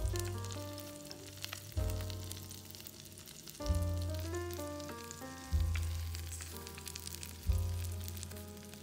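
Food frying in hot vegetable oil, a steady sizzle with fine crackles, under background music that has a bass note about every two seconds.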